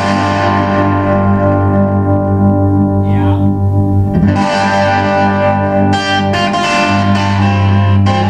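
Electric guitar played through a Garnet Gnome amplifier with an open-back 10-inch ceramic speaker: loud, ringing chords and notes that change every couple of seconds.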